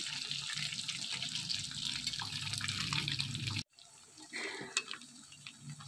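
Battered chicken pieces deep-frying in hot oil in a kadhai: a steady sizzle with fine crackling. A little past halfway the sound cuts off abruptly, and the sizzle returns much fainter.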